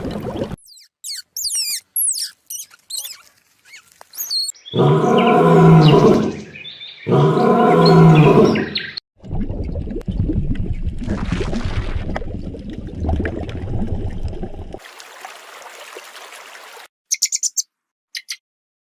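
A run of different animal calls one after another: quick high chirps and squeaks, then two loud drawn-out low calls of about a second and a half each, then several seconds of rough grunting, and a few more high chirps near the end.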